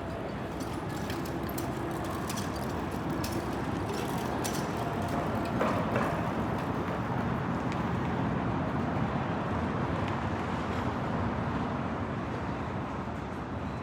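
City street traffic: a steady rumble of passing vehicles, with scattered light clicks in the first few seconds and a slight swell in loudness about halfway through.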